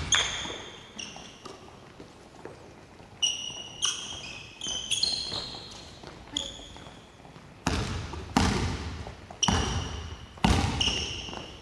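Basketball practice on a gym court: a ball bouncing, with several loud thuds in the second half, and basketball shoes squeaking briefly on the floor as players cut and stop.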